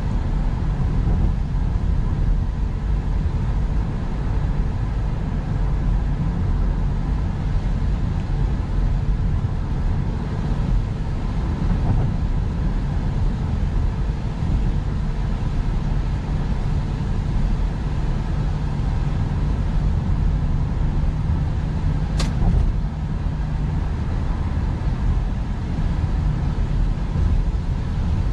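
Steady road and engine noise heard inside the cabin of a car cruising on a wet highway, mostly a low rumble. A single sharp click sounds about three-quarters of the way through.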